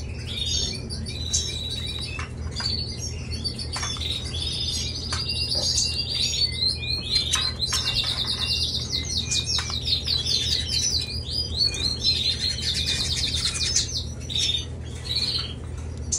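Canaries chirping and singing, with fast trills of rapidly repeated notes through the middle stretch. A steady low hum runs underneath.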